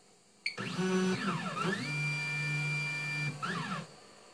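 Ultimaker 3D printer's stepper motors running through an automatic bed-calibration move. A pitched motor whine starts about half a second in and sweeps up and down in pitch as the motors speed up and slow down. It holds a steady note through the middle, then winds down and stops just before the end.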